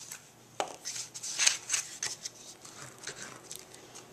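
Cardstock being handled and glued on a craft mat: light paper rustles, slides and small taps, with scattered clicks.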